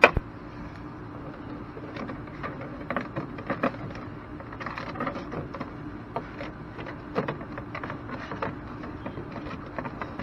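Vinyl soffit panels being handled and slid into their channel overhead: irregular light clicks, taps and rattles of the thin plastic, with a sharper click at the start. A faint steady hum runs underneath.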